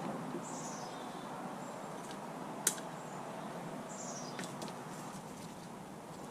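A small bird chirping twice, each a short high call falling in pitch, over a steady background hum, with one sharp click a little under three seconds in and a few fainter ticks.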